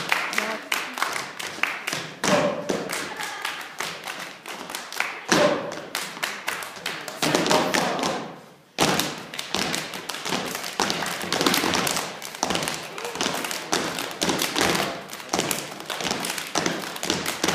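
Step team stepping: rhythmic foot stomps on the stage floor and hand claps. About eight seconds in the beat fades to a brief stop, then starts again sharply.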